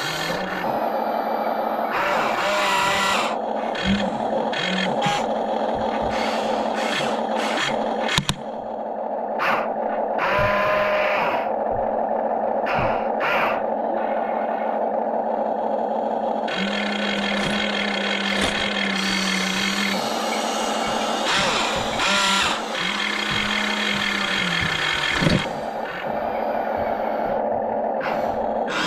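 Toy RC excavator's electric motors and gears whining steadily as it works, the pitch shifting now and then as different functions run, with scattered clicks and clatter.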